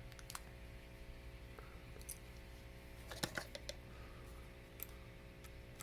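Faint, scattered clicks of small plastic Lego Hero Factory pieces being handled, with a cluster of several clicks about three seconds in.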